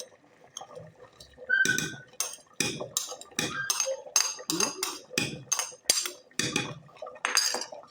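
A spoon stirring a thick potato stew in a pressure-cooker pot, scraping and clinking against the pot in a steady run of about two to three strokes a second.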